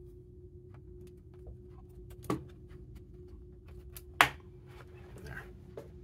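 Laptop's plastic bottom cover being pressed onto the chassis: light taps and rattles, then two sharp snaps about two seconds apart, the second the louder, as the cover's clips click into place.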